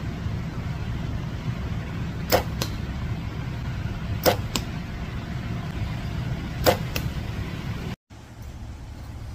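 A bow shot three times about two seconds apart: each shot is a sharp snap of release followed about a third of a second later by the arrow striking a stacked-cardboard target. A steady low rumble runs underneath.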